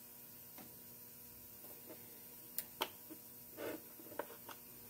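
Faint, scattered clicks and light taps of small metal engine parts being handled: the link rods, link pins and retaining disc of a model five-cylinder radial engine being fitted to the master rod. About half a dozen separate ticks, with one slightly longer rub about two-thirds through.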